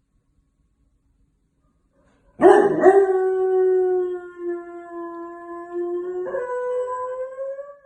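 A dog howling. About two seconds in, a long, steady howl starts; near the end it gives way to a higher howl that slowly rises.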